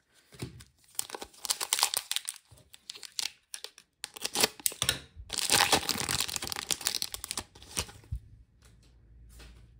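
A foil Footy Stars trading card pack being torn open and crinkled by hand, in two long spells of crackling with a brief pause between them, thinning to a few small clicks near the end.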